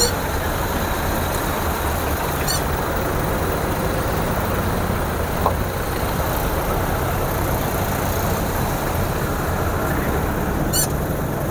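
Engines of several vintage open-top Land Cruiser-style jeeps running as the convoy pulls away at low speed, a steady low rumble. Two brief high squeaks cut through, one about two seconds in and one near the end.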